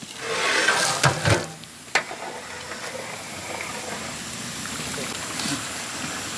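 Large cooking pot of water boiling for the biryani rice, a steady bubbling hiss. In the first couple of seconds there is a louder splashy burst with a few knocks, as ingredients go into the pot.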